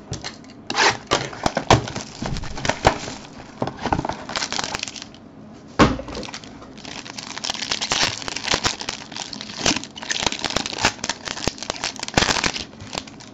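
Plastic shrink wrap crinkling and tearing as a sealed trading-card box is stripped and its clear plastic pack wrapper ripped open: a run of irregular crackles and sharp clicks, with one loud snap about six seconds in.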